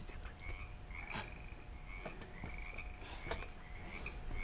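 Frogs calling, short croaking notes repeating about twice a second, with a couple of soft knocks among them.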